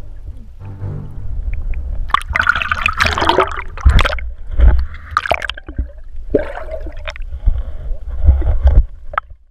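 Water gurgling and sloshing around a camera held just below the surface, over a steady low rumble, with several loud bursts of splashing.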